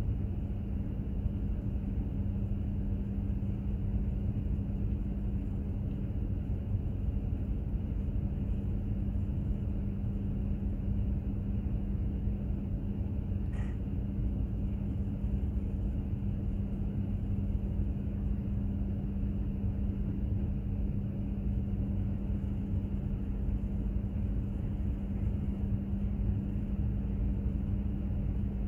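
Container ship underway: a steady low rumble of its engine and machinery, with a constant low hum running through it.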